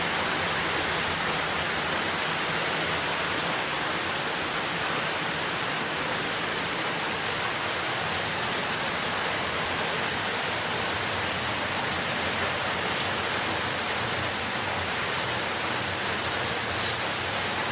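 Steady rainfall, an even hiss of rain with no distinct drops standing out.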